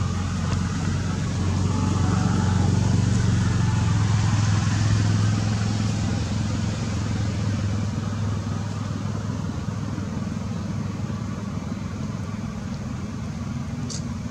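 Steady low hum of a running engine or motor, swelling slightly for a few seconds before easing back, with a faint click near the end.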